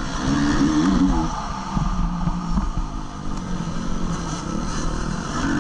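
2014 Honda CRF 250 motocross bike's single-cylinder four-stroke engine revving hard under racing: its pitch climbs in the first second, holds lower through the middle, dips briefly and climbs again at the end.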